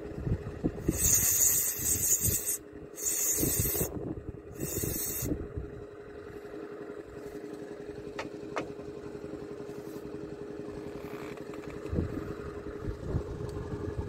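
Aerosol cleaner sprayed in three short hissing bursts to clean dirt off a removed sensor, followed by a steady mechanical hum with a few small clicks.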